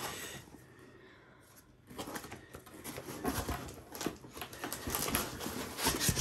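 Cardboard box packing being handled: paper leaflets and a foam insert rustled, slid and lifted out, an irregular run of rustles, scrapes and light taps starting about two seconds in.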